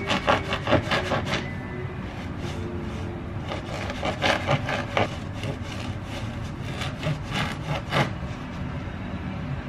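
A knife sawing through the crusty crust of a ciabatta loaf on a wooden cutting board: quick back-and-forth rasping strokes with the crust crackling, in three spells.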